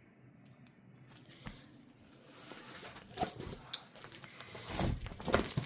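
Packaging of a diamond painting kit being handled: rustling and light clicks and knocks, faint at first and louder near the end.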